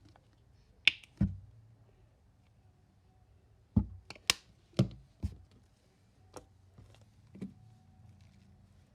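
Soft marshmallow slime being squeezed and played with by hand, giving sharp clicks and pops at irregular intervals, about nine in all, bunched around a second in and again from about four to five seconds in.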